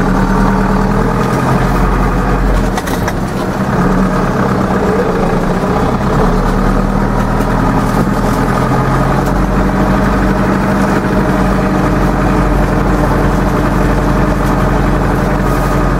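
Zetor 7245 tractor's four-cylinder diesel engine running steadily while the tractor drives along, heard from inside the cab.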